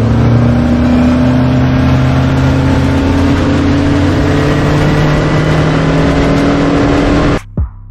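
Boat's outboard motor running steadily at speed, with rushing wind and water noise; it cuts off suddenly near the end.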